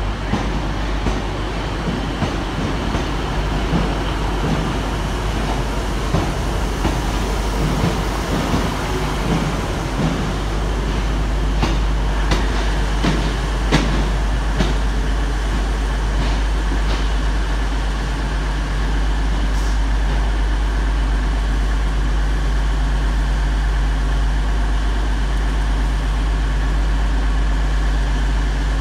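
Northern Class 153 and Class 150 diesel multiple units pulling away from the platform, their underfloor diesel engines and wheels rumbling as they move off. A few sharp clicks come near the middle, and a steady low engine hum carries on through the second half.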